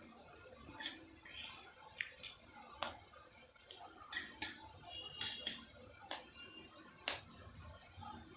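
Close-up eating sounds from a mouthful of noodles: about ten short, wet mouth smacks and clicks of chewing, spaced irregularly.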